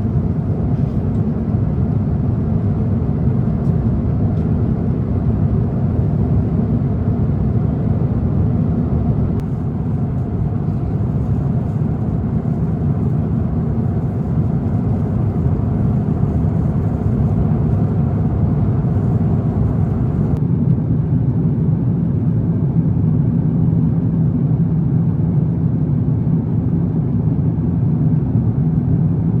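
Steady cabin roar of an Airbus A350-900 in flight, a deep rumble of its Rolls-Royce Trent XWB engines and rushing air heard from a window seat. The higher hiss drops a little about twenty seconds in.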